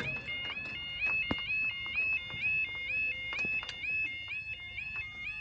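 Level crossing warning alarm sounding, a high two-tone yodel that warbles up and down over and over, with a few sharp clicks.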